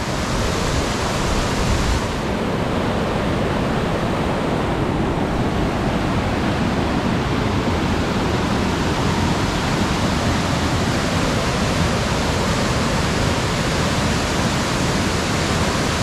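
Stream running high after days of rain: a loud, steady rush of water.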